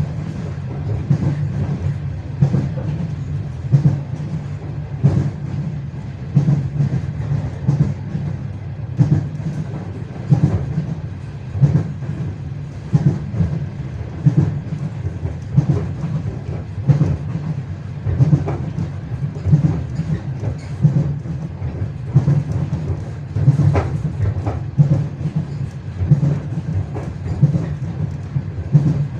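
Passenger train wheels clattering over rail joints, clacks coming about every second, often in close pairs, over a steady low rumble of the moving carriage.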